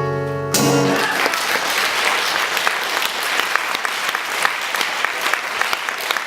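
Acoustic guitar's last chord ringing, struck once more about half a second in. From about a second in, a concert audience applauds steadily.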